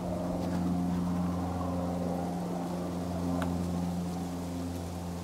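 An engine idling steadily, an even low hum that holds the same pitch throughout.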